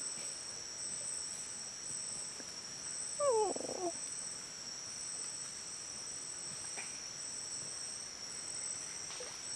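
Rainforest insect chorus, a steady high-pitched buzz at two pitches. About three seconds in, a brief falling call cuts across it.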